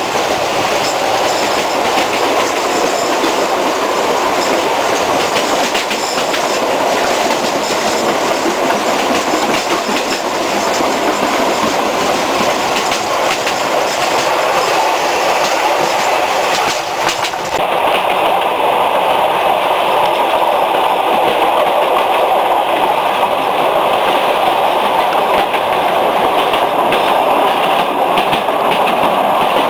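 The Sóller railway's narrow-gauge electric train running along the line, heard from inside a wooden carriage with the window open: a steady rumble of wheels on rails with the clickety-clack of rail joints.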